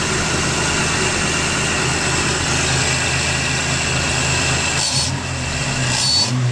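Nissan VG30i 3.0-litre V6 idling steadily at about 1,000 rpm, then given a couple of short throttle blips by hand at the throttle body linkage near the end.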